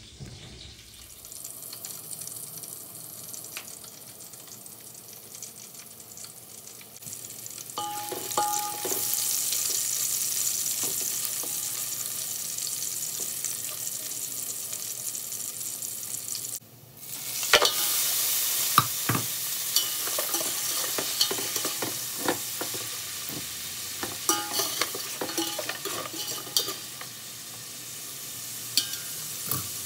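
Chopped garlic and then chunks of beef frying in oil in a large aluminium cooking pot, a steady sizzle as a spatula stirs them. The sizzle grows louder about a quarter of the way in, cuts out for a moment a little past halfway, then comes back stronger with sharp clicks and knocks of the utensil against the pot.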